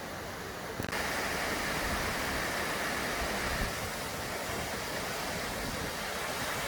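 Steady rush of flowing mountain river water, growing louder and brighter all at once about a second in.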